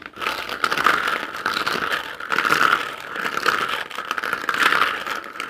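Clear plastic surprise-egg capsules clattering against each other and the bowl as hands rummage through and stir them: a dense, continuous rattle of small plastic knocks.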